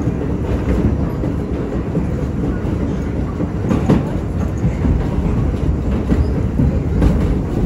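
R68 subway car running along the track, heard from inside the car: a loud, steady low rumble of wheels on rail, with a few sharp clicks over rail joints.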